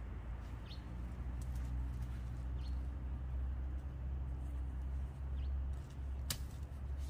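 Garden hoe chopping into the soil of a raised bed, with one sharp strike about six seconds in, over a steady low rumble. A few faint bird chirps.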